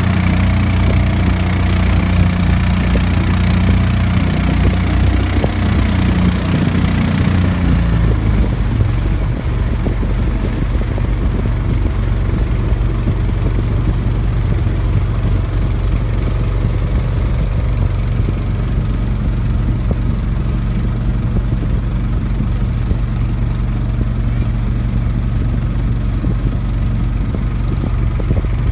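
Engine of a wooden river boat running steadily, a low, even drone; about eight seconds in, its sound turns lower and duller.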